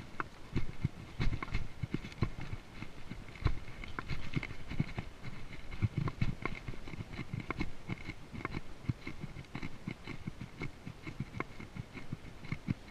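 A horse walking up a rocky trail, its hooves knocking on stone and dirt in an uneven run of thumps and clicks.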